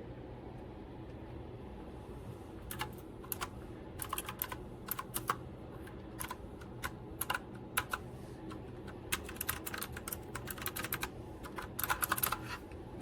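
Typing on an RK Royal Kludge S108 mechanical keyboard with clicky blue switches: irregular key clicks start about two and a half seconds in, with a quick flurry near the end, over a steady low hum.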